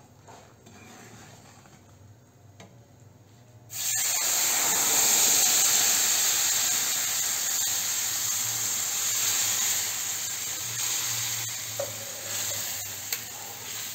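Milk poured into semolina roasted in hot ghee: a sudden loud sizzle about four seconds in, going on as a steady hiss of steam that slowly eases while a wooden spatula stirs, with a couple of light knocks near the end.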